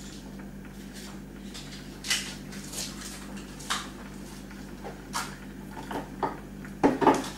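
Dishes and kitchen utensils clinking and knocking as things are put away: a scattered string of short clatters, the loudest pair near the end, over a steady low hum.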